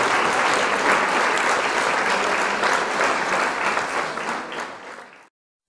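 Crowd applauding, a dense steady clatter of clapping that fades out near the end and stops.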